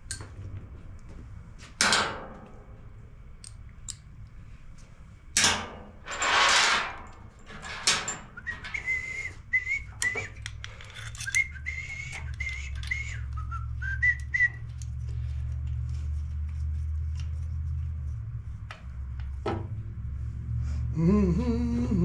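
A man whistling a wandering tune for several seconds while he works, after a few sharp knocks and clatters of hand tools on a metal workbench. A low steady drone sets in partway through, and near the end he hums.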